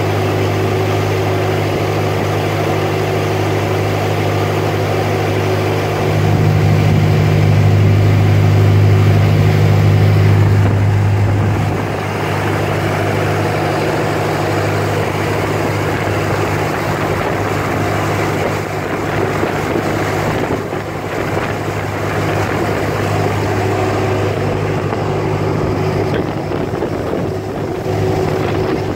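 Boat engine running steadily under way: a low, even hum with a rushing noise over it. It grows louder about six seconds in and settles back about twelve seconds in.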